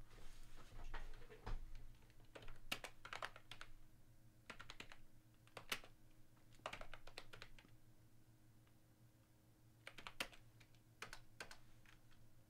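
Faint typing on a computer keyboard: short runs of keystrokes with pauses of a second or more between them.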